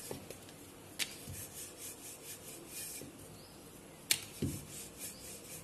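Rolling pin working paratha dough on a granite rolling board: faint rubbing, with two sharp clicks, about a second in and about four seconds in.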